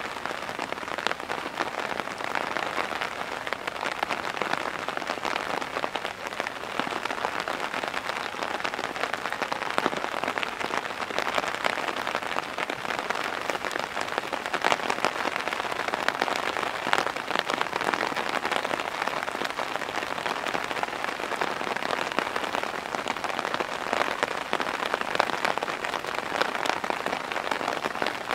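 Heavy rain pouring down steadily, a dense patter of drops hitting hard surfaces.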